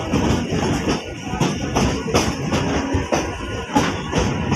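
Background music with a rhythmic percussion beat.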